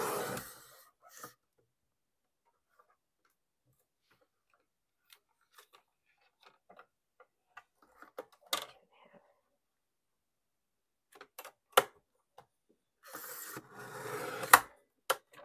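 Fiskars sliding paper trimmer cutting card stock: the blade carriage scrapes along its rail twice, once at the start and again about thirteen seconds in, the second cut ending in a sharp click. Between the cuts there are light clicks and taps as the paper is handled and lined up on the trimmer.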